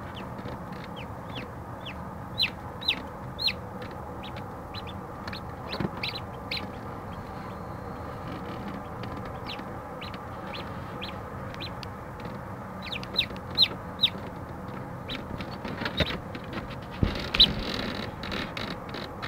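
Newly hatched chicks peeping: short, high cheeps that fall in pitch, coming in irregular runs, over the steady hum of the incubator. A couple of soft knocks near the end.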